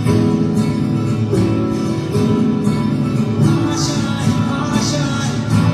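Recorded music playing an instrumental passage with guitar and no singing, the lead-in to a Hindi film song.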